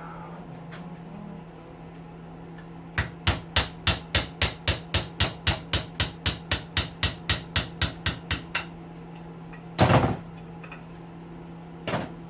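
Hammer tapping a punch in a quick steady run, about four blows a second for some five seconds, to drive a brass bushing out of a hedge trimmer's metal housing. Then one louder, heavier blow, and a lighter one near the end.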